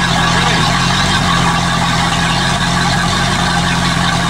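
Sterndrive boat engine running steadily out of the water on a stand, cooling water fed by hose through its freshly replaced impeller, after the boat had sat in long storage.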